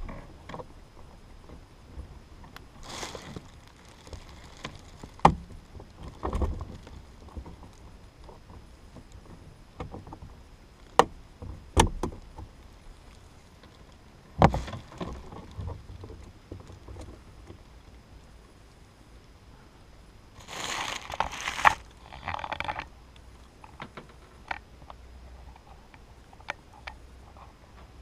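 A plastic trunk-light housing being pried out of its trim panel with a small flat tool: scattered sharp plastic clicks and knocks, with a few short scraping, rustling spells, the longest about twenty seconds in.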